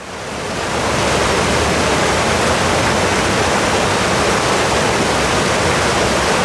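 Fast-flowing water rushing and churning over stones, a loud, steady rush that swells up over the first second.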